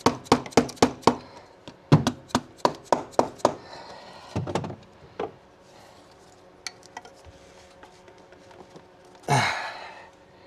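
Rapid, evenly spaced knocks of a hand tool on engine parts, about three a second in two short runs, as a stuck part is worked loose; a few duller thuds and faint clicks follow, with a short breathy noise near the end.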